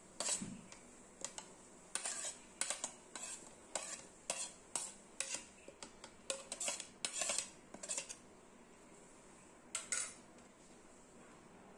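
Light, irregular clinks and taps of a plate and utensils against a stainless-steel mixer-grinder jar as mint leaves are put in, one to three a second, pausing and then two more near the end.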